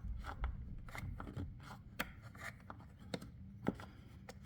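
A small hand screwdriver turning small screws out of plastic: scattered, irregular clicks and light scrapes of the metal tip on the screw heads and the plastic housing.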